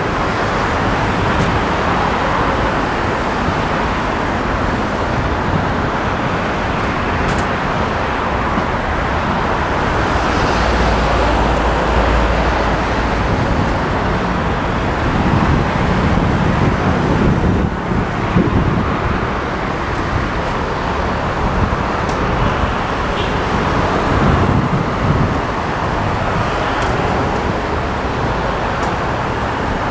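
Steady road traffic noise from cars and motorcycles on the busy multi-lane road below the footbridge, with a deeper low rumble from about ten to thirteen seconds in.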